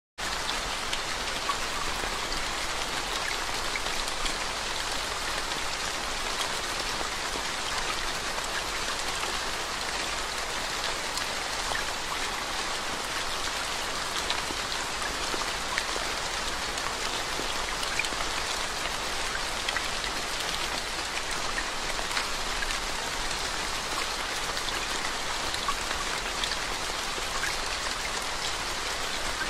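Steady rain falling into standing water on a lane: an even hiss dotted with many small, sharp drop hits.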